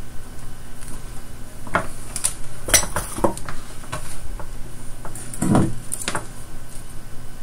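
A few light metallic clinks and taps in short clusters as the soldering iron and tools are handled, over a steady low background hum.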